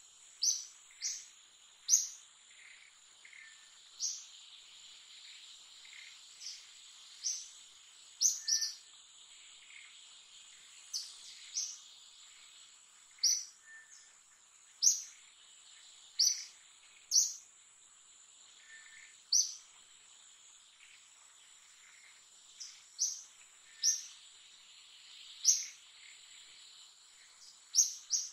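A steady high-pitched insect drone, with short, sharp high chirps every one to two seconds.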